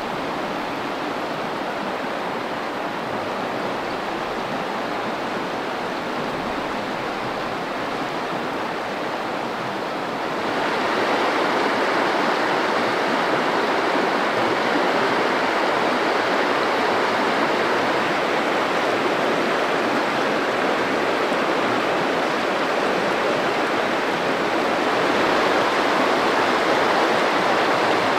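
Steady rushing of a river flowing past: an even water hiss with no distinct events, louder from about ten seconds in and a little louder again near the end.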